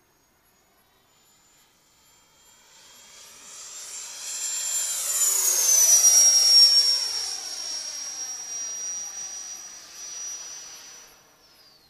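A radio-controlled electric ducted-fan L-39 model jet makes a low flyby. Its high fan whine swells and drops in pitch as it passes, about six seconds in, then fades away.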